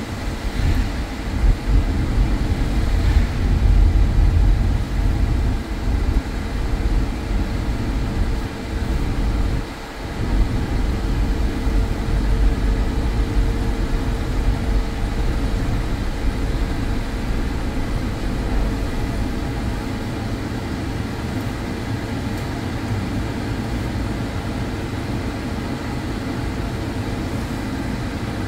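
Cabin noise inside a moving car: engine and tyre rumble on a snow-covered road, with a steady hum. The rumble settles to a quieter, even level about two-thirds of the way through as the car slows and stops at a red light.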